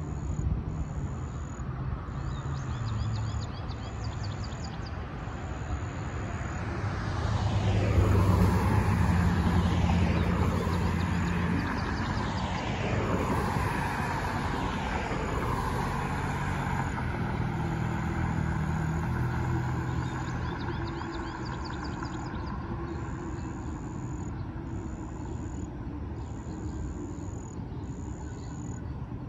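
Several cars drive past close by, one after another. Each gives a falling whoosh of tyres and engine, and the passes are loudest about eight seconds in and fade by about twenty seconds. Insects chirp steadily in the background.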